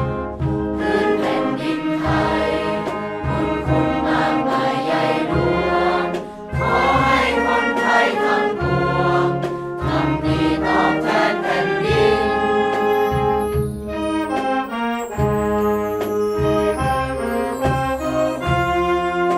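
A large group of students singing together, accompanied by a school brass and wind band.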